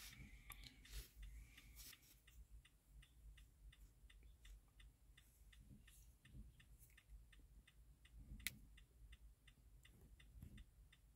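Faint, steady ticking of a car's hazard-light flasher, about three ticks a second, with one sharper click near the end.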